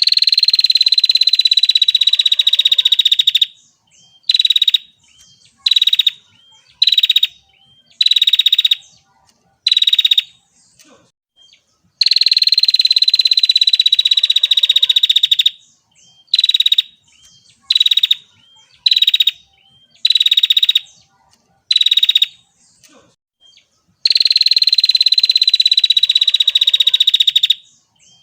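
Female prinia giving rapid, buzzy trill calls. Each round opens with one long trill of about three and a half seconds, then a string of short trills about a second apart; the whole pattern comes three times, like a looped recording.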